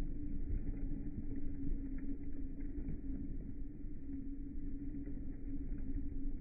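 Automatic washing machine running: a steady low rumble with a constant motor hum and a few faint ticks.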